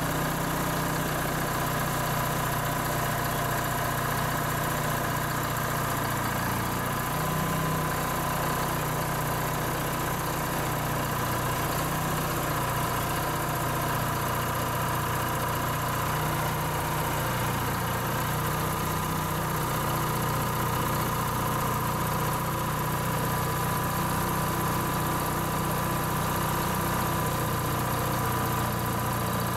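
Old crawler crane's engine running steadily while the crane hoists and swings a heavy steam engine on its hook.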